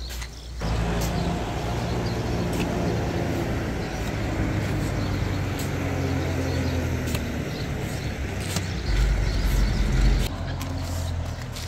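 A motor vehicle engine running steadily close by, with a heavier low rumble near the end. Now and then comes a short sharp scrape of a steel shovel in sand.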